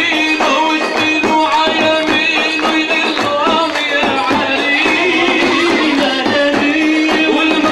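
Arabic zaffe wedding music: tambourines and hand percussion beat a fast, steady rhythm under a wavering melody and a held low tone.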